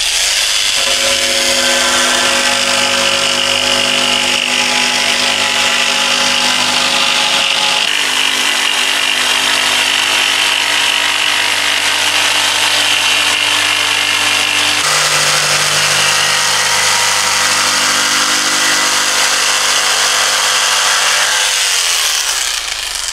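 Corded jigsaw cutting through a sheet of Coosa composite board, running steadily at full speed. Its motor note shifts a couple of times during the cut, and it winds down near the end.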